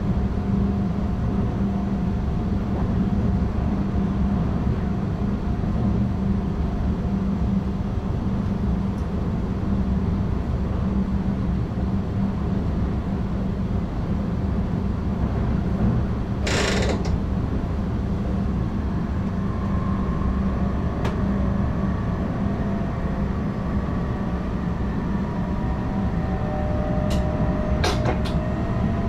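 Inside the cab of an NS ICM (Koploper) electric intercity train running along the line: a steady rumble and drive hum with creaking from the cab. There is one short sharp hiss or screech about halfway through, and a few clicks near the end.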